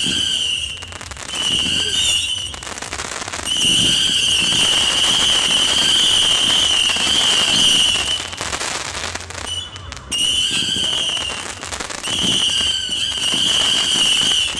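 Nico 'Sound Check' 750-shot whistle battery firing in rapid succession: a dense, shrill whistle held in stretches of one to about five seconds, with crackling between as the whistles turn into crackling stars.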